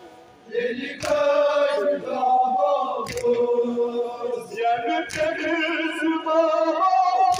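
Kashmiri noha (mourning chant) sung by a man through a microphone, with a group of men chanting along; the singing picks up again about half a second in after a short pause. Sharp slaps come about every two seconds as mourners beat their chests (matam) in time with the chant.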